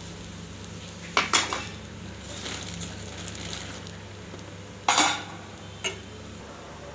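Slotted metal spatula scraping and clanking against a flat iron griddle (tawa) where a bread sandwich is toasting: two louder clatters, about a second in and about five seconds in, and a lighter tap soon after, over a steady low hum.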